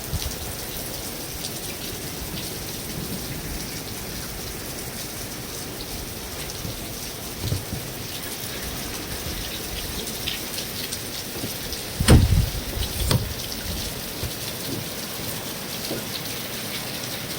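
Steady rain falling on a metal roof, with many separate drops ticking. About twelve seconds in there is a loud short thump, and a smaller one a second later.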